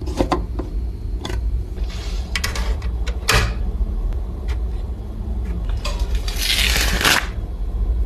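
Handling noise: scattered light clicks and short scrapes over a steady low hum, with a longer hissing scrape about six to seven seconds in.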